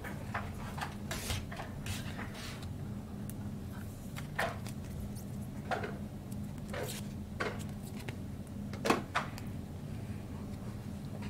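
Trading cards and pack wrappers being handled on a table: a string of short rustles, slides and taps, roughly one a second, over a steady low hum.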